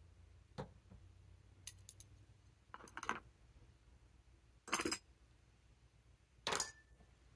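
Small clicks and clinks of a pen being handled and worked apart by hand, in five or so short separate bursts, with a quick run of fine ticks about two seconds in and the loudest clicks near the middle and end.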